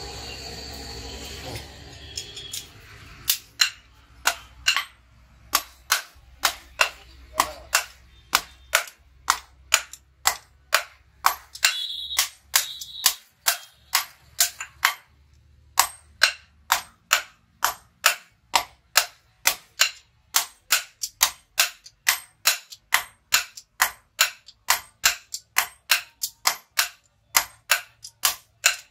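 A hand sledgehammer strikes a red-hot steel billhook blank on an anvil block, forging it. The sharp blows come in an even rhythm of about two to three a second, with a brief pause about halfway. Before the hammering starts, a steady rushing noise comes from the coal forge fire for the first couple of seconds.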